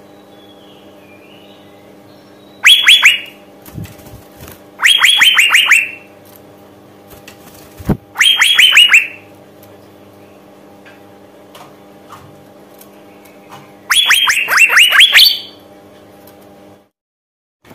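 Female Asian fairy-bluebird (cucak biru) calling: four bursts of sharp notes, each a quick run of five or six notes that drop in pitch, over a steady low hum. The sound cuts out just before the end.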